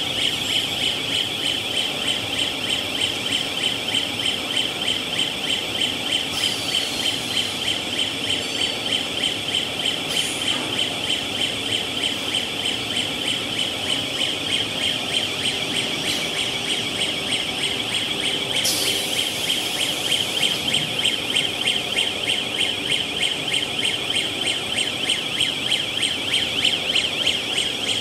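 Cast stretch-film line running, with a high-pitched electronic warning buzzer pulsing rapidly and steadily over the machine noise. Short hisses break in three times.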